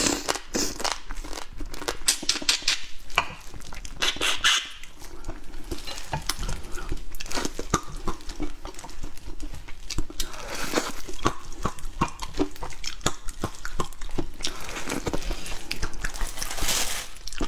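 Close-up crackling, tearing and clicking of seafood shells being cracked and peeled by hand, with irregular sharp clicks throughout.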